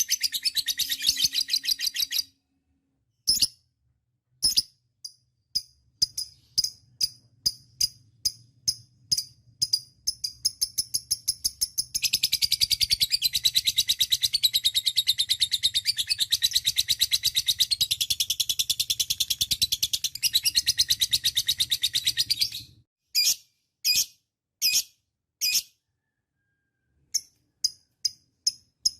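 Lovebird singing its 'ngekek': high, rapid-fire chattering trills. A short burst opens, then single sharp chirps spaced out, building into one long unbroken chatter of about ten seconds (the prized 'ngekek panjang'), then a few separate chirps again.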